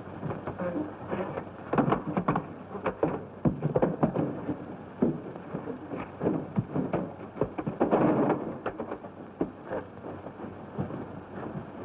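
Fistfight scuffle on an early-1930s film soundtrack: irregular thuds, bumps and shuffling, with louder crashes about two and eight seconds in.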